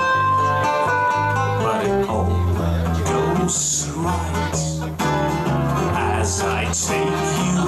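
Small band playing live, unplugged: acoustic guitar and electric guitar with keyboard, over sustained low notes.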